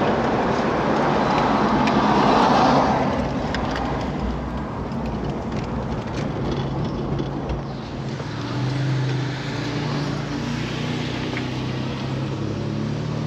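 A car driving: engine and road noise, with a loud rush for the first three seconds that settles into a steadier engine hum.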